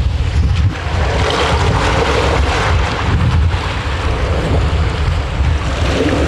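Wind buffeting the microphone over sea-water noise around a small fishing boat: a steady low rumble under a broad hiss.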